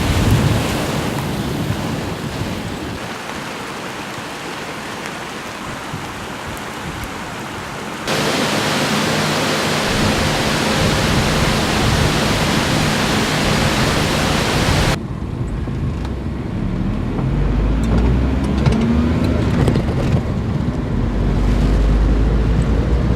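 Typhoon downpour and wind as a loud, steady hiss, which changes abruptly twice, with a low rumble in the last part.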